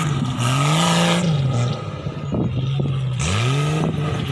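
Off-road vehicle's engine revving up and down, the pitch easing off after about a second and climbing again about three seconds in, with short knocks and clatter in between.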